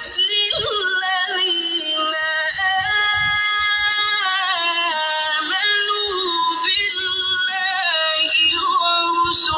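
Melodic Quran recitation (tilawat): a high voice holding long notes with wavering ornaments, pausing briefly between phrases.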